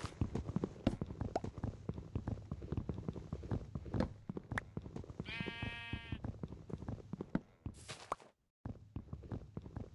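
Irregular clicks and knocks throughout, with one steady, high pitched call or squeal lasting about a second midway. The sound cuts out completely for a moment near the end.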